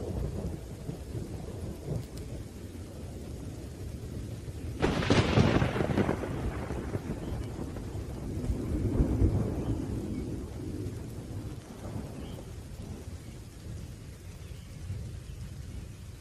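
Thunderstorm with steady rain and low rumbling thunder. About five seconds in a sharp thunderclap breaks and rolls off over several seconds, and a lower rumble swells again around nine seconds in.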